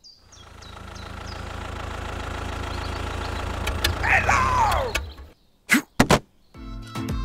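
Tractor engine running steadily, fading in over the first second and stopping about five seconds in. A falling whistle-like glide sounds around four seconds in, and two short sharp sounds follow near the end.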